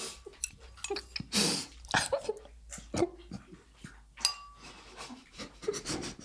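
Close-up eating sounds from a bowl of udon soup: slurping and chewing, with a hissing slurp about one and a half seconds in. A utensil clinks against the bowl with a short ring about four seconds in.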